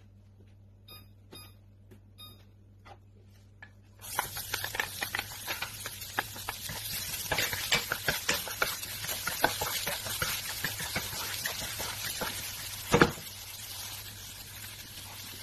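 Minced garlic frying in hot oil in a wok: a sizzle starts suddenly about four seconds in and carries on while a wooden spoon stirs and scrapes it around the pan, with small clicks throughout and one loud knock near the end. Before the sizzle there is only a low hum and a few faint clicks.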